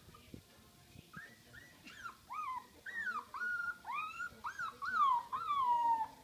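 Puppy whining and yelping in a quick series of high, arching cries, starting about a second in and growing louder toward the end, the last cry longer and falling in pitch.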